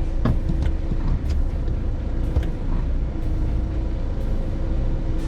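Large truck's diesel engine running as the truck creeps along at low speed, heard from inside the cab as a steady low rumble. There are a few light knocks and rattles in the first couple of seconds.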